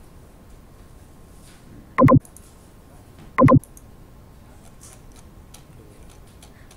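Two short, loud buzzing beeps about a second and a half apart, among faint computer mouse clicks.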